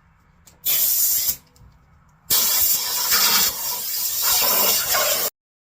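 Compressed air blowing debris off a stripped engine block: a short hissing blast of about half a second, then a longer one of about three seconds that stops abruptly.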